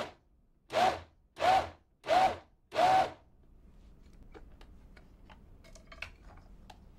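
Vitamix 5200 blender motor pulsed on and off five times in quick succession, each short burst spinning up in pitch as the blade kneads a stiff whole-wheat bread dough. A few faint clicks follow.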